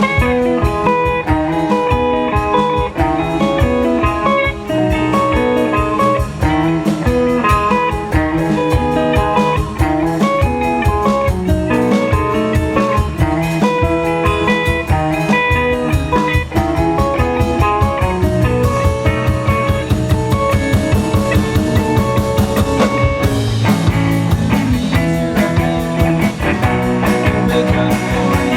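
Live rock band playing an instrumental section: guitar over a steady drum kit beat, with no singing.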